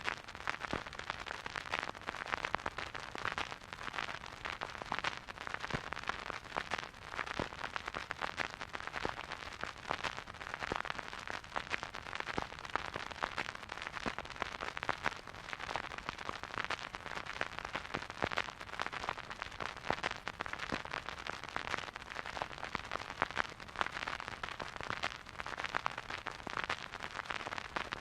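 Vinyl record crackle from a stylus riding a silent groove: a steady hiss dotted with dense, irregular clicks and pops.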